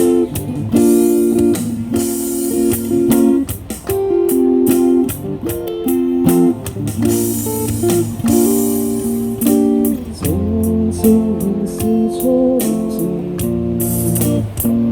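Live band playing the instrumental intro of a song: strummed guitar chords changing every second or so, with sharp percussive hits keeping the beat, and no singing yet.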